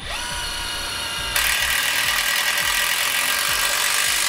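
Cordless impact driver spinning up and driving a self-tapping screw into a steel trailer frame. About a second and a half in, its impact mechanism starts hammering as the screw bites, clearly louder, and it keeps running.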